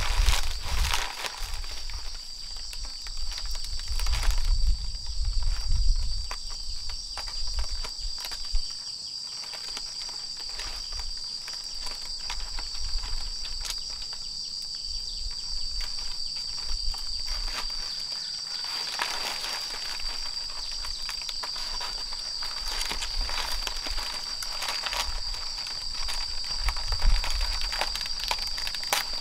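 Insects droning steadily at a high pitch, with scattered rustling and footstep-like crunches in vegetation and a few low rumbles.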